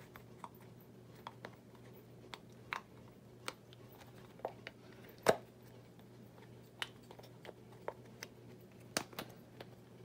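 Small rubber toy tires being worked onto plastic wheel rims by hand: scattered light clicks and rubbing of the rubber and plastic parts, with one sharper click about five seconds in, over a faint steady hum.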